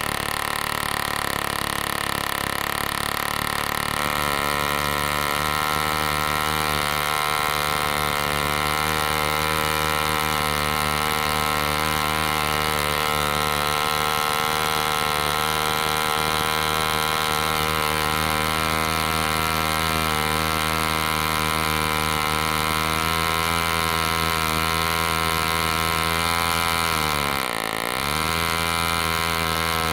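1946 Super Cyclone .604 (10cc) two-stroke spark-ignition model engine running flat out on a test stand, turning a 14x6 wooden propeller. About four seconds in it settles into a steady, slightly louder run. Near the end its revs drop sharply for a moment and then pick straight back up.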